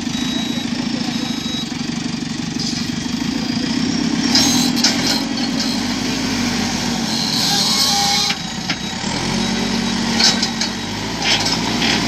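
JCB 3CX backhoe loader's diesel engine running steadily while the front loader works, with several short high hissing noises over it, the longest lasting about a second past the middle.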